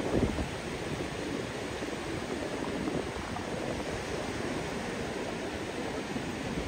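Steady wash of surf breaking on a sandy beach, mixed with wind rumbling on the microphone; a short, stronger low gust of wind noise comes right at the start.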